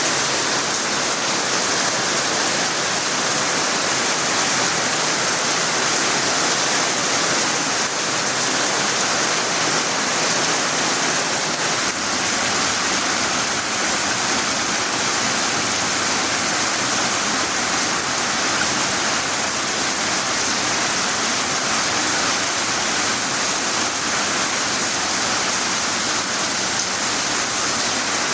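Rain pouring down steadily: a loud, even rushing hiss with no breaks.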